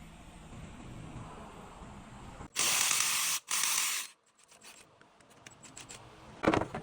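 A faint low hum, then two loud hissing bursts of just under a second each, then a few faint clicks.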